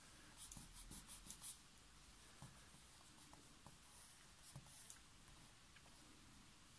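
Faint pencil strokes scratching on paper: a quick run of short strokes in the first second and a half, then a few more around four seconds in.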